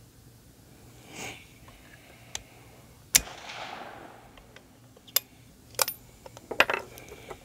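Sharp metallic clicks and clinks of a bolt-action rifle and its brass being handled at the bench. The loudest click comes about three seconds in, followed by a short hiss, and a quick cluster of clicks comes near the end.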